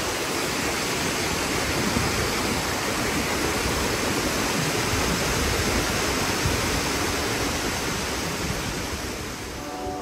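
Waterfall pouring down beside a cave and rushing across the rock floor: a steady, dense rush of falling water that eases off slightly near the end.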